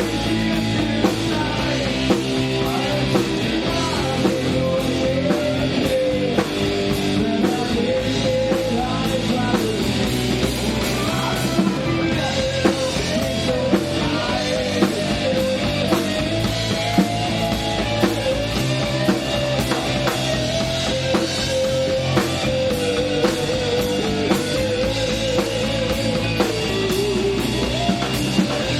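Live punk rock band playing: drum kit, distorted electric guitars and bass, with a melody line carried over the top and a steady pounding beat.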